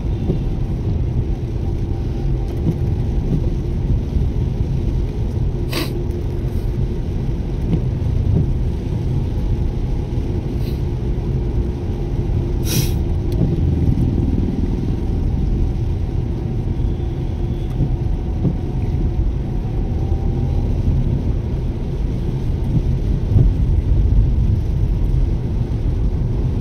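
Steady low rumble of a moving car, engine and road noise with a constant hum, broken by two sharp clicks about six and thirteen seconds in.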